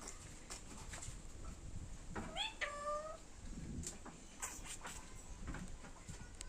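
Pet parrot giving one short two-part call about two seconds in: a brief rising note, then a held steady note, in a cat-like, meow-like voice.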